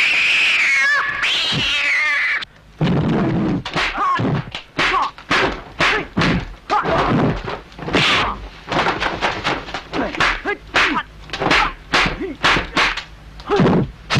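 Two long, wavering, high cat-like yowls, then a fast run of dubbed punch and kick impact sound effects mixed with short cries and yowls, typical of a kung fu film's 'cat's claw' fighting style.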